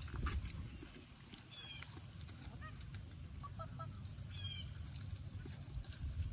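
A bird calling outdoors: two short calls about three seconds apart, with fainter chirps between them, over a low steady rumble.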